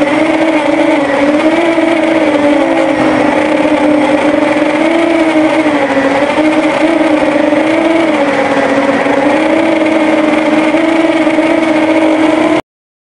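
Quadcopter's electric motors and propellers running steadily, heard from a camera on the frame, the pitch wavering slightly up and down as motor speed shifts. The sound cuts off suddenly near the end.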